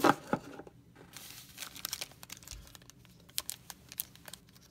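Foil wrappers of football trading card packs crinkling and rustling as a stack of packs is handled, with a louder rustle right at the start and scattered small crackles after.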